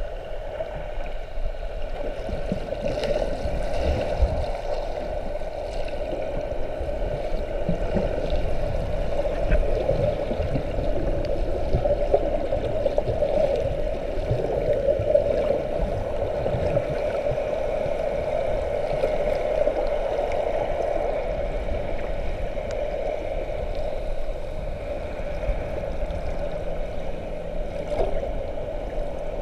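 Muffled underwater water noise heard through an action camera's housing below the surface, with a steady hum and uneven low rumbling.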